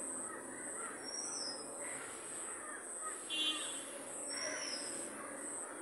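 Birds calling outdoors: a high, arching call repeated about every three seconds, and one short, harsher call about halfway through, over a steady low hiss.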